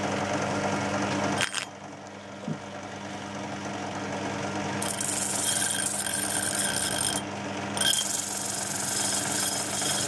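Flexible-drive sanding drum running off a pillar drill, with a steady motor hum. From about five seconds in, the abrasive drum grinds against the car-spring steel of a hooked spoon-knife blade with a high, rasping hiss. The hiss breaks off briefly near seven seconds and then resumes.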